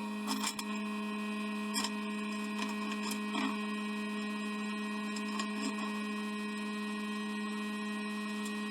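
Steady mechanical hum holding one pitch, with a few faint clicks.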